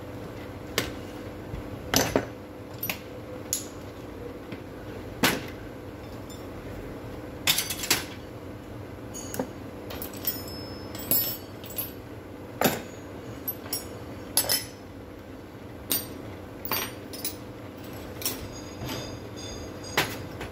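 Metal hand tools being picked up and set down on a workbench: scattered sharp clinks and knocks, roughly one a second, over a steady background hum.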